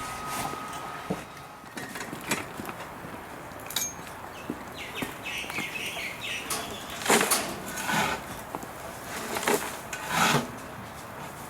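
Intermittent scrapes and rustles, loudest about seven and ten seconds in, with a short run of high chirps around five seconds in.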